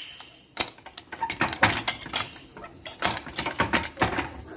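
A pressure cooker being opened after cooking: its whistle weight and lid are handled, giving a series of irregular metal clicks and clinks.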